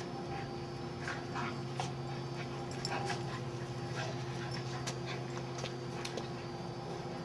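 Two dogs playing together: short, soft dog sounds and scuffling clicks over a steady low hum.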